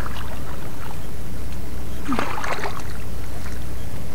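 Shallow sea water sloshing and splashing around a wader's legs and hands, with a brief cluster of splashes about two seconds in, over a steady low rumble.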